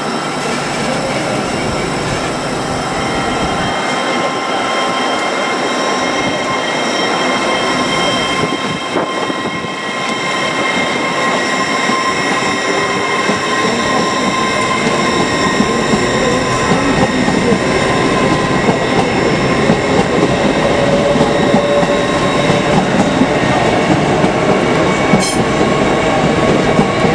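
LNER Azuma high-speed train running along the platform: steady rail and wheel noise with high whining tones on top, getting slightly louder toward the end.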